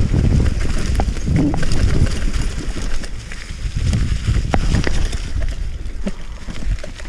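Mountain bike rolling fast downhill on a dirt trail: a steady low rumble of tyres and wind on the microphone, with sharp clicks and rattles from the bike over bumps.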